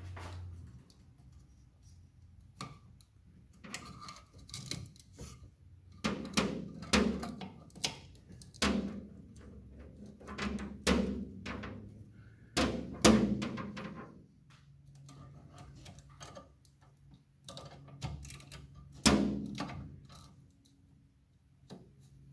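Irregular metallic clinks and knocks from small steel parts and a hand tool being worked in a steel car pedal box, some with a brief ring.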